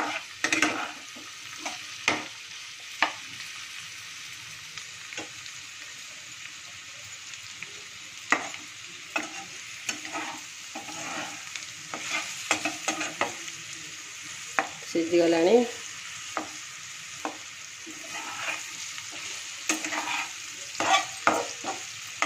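Radish slices sizzling in hot oil in a kadai while a steel spatula scrapes and taps the pan, stirring them at irregular intervals. A brief squeal about two-thirds of the way in is the loudest moment.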